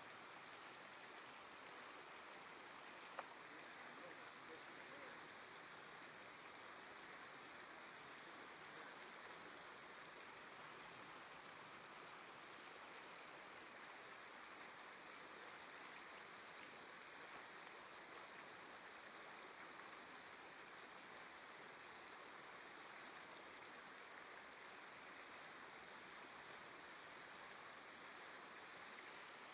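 Faint, steady rush of a small creek running over a rocky riffle, with a single sharp click about three seconds in.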